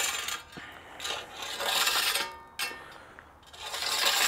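Scythe blade scraping and grating over gravel in sweeping strokes about two seconds apart, the edge catching on the stones as it does when the blade's lay angle is set too flat.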